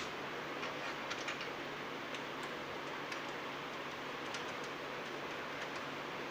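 Scattered light clicks and ticks, a few at a time, over a steady hiss: small hardware being handled by hand.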